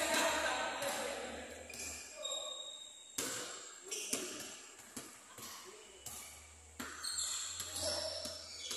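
A basketball being dribbled on an indoor gym court: several sharp, irregularly spaced bounces that echo around the hall, with distant players' voices in the background.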